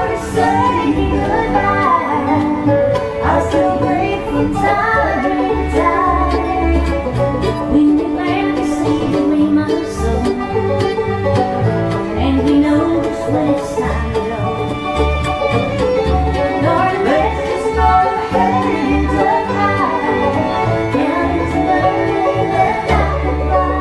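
Live bluegrass band playing an instrumental break: banjo and fiddle runs over guitar and double bass keeping a steady beat.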